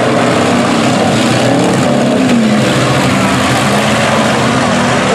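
Several demolition derby trucks and vans with engines running and revving together, their overlapping pitches rising and falling.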